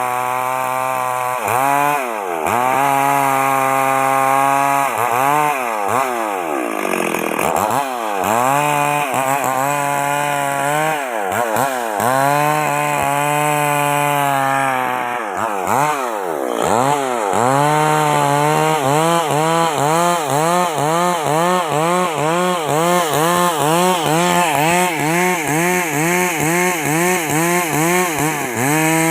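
Stihl 385 two-stroke chainsaw running hard while cutting through a log, its engine pitch repeatedly dipping and climbing back as it bites into the wood. In the second half the dips come evenly, more than once a second.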